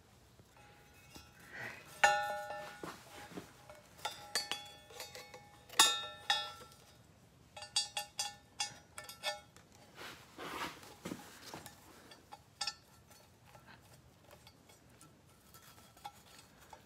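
Loose metal parts and hand tools clinking against each other in several short clusters, each strike ringing briefly.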